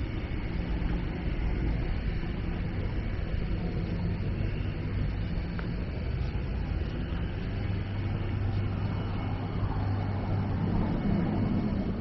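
City street traffic: a steady rumble of passing vehicles, with a low engine hum that grows stronger in the second half.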